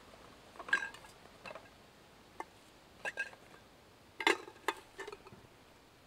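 Handling noises of food in plastic bags being taken out of a motorcycle's soft saddlebag: a series of short rustles and light knocks, the loudest about four seconds in.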